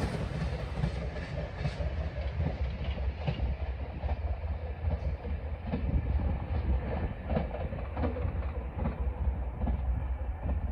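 JR Shikoku 8600 series train running on the track: a steady low rumble with wheels clicking over rail joints in an uneven series.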